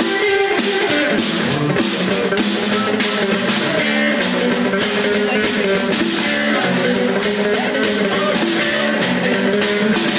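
Live rockabilly instrumental passage: an amplified orange hollow-body electric guitar plays over a steady snare drum beat, with no vocals.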